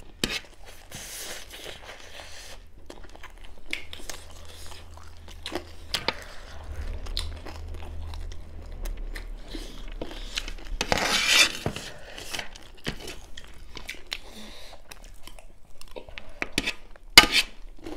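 Close-miked chewing and crunching of dry chicken chatpate, a crunchy puffed-rice snack mixed with fried chicken, with many short crisp crunches. There is a louder crunchy burst a little past the middle and a sharp click near the end.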